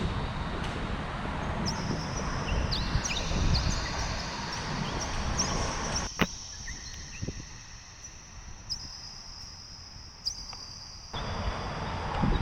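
Wind buffeting the microphone, with short high chirps throughout. There is one sharp crack about six seconds in, and the wind noise drops away after it and returns near the end.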